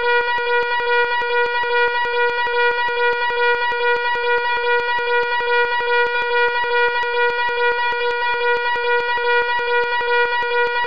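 Fire alarm sounding: a loud, steady buzzing tone that throbs in a fast, even pulse.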